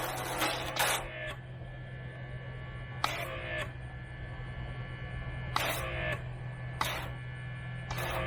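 An electric pressure washer hums steadily while a foam cannon gives short, sharp spray bursts about half a dozen times, spaced unevenly, as its tip is adjusted.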